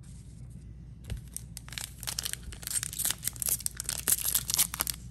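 Foil wrapper of a Topps 2021 Series 1 baseball card pack crinkling and tearing as it is pulled open by hand: a quick run of sharp crackles starting about a second in and growing busier.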